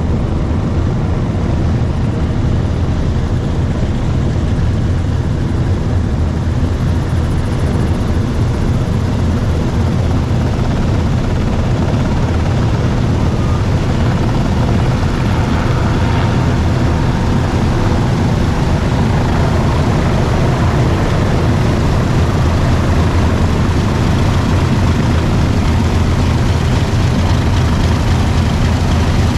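Boeing B-29 Superfortress's four Wright R-3350 radial engines running as the bomber taxis: a loud, steady, deep propeller drone that grows slightly louder as the plane comes closer.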